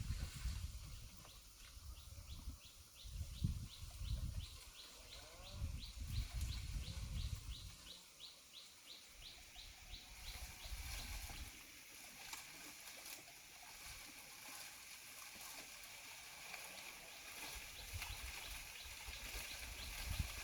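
Faint rural outdoor sound: a high chirping call repeated in an even rapid series, about four notes a second, for roughly the first eleven seconds, over low irregular rumbles. A steady high hiss takes over in the later part.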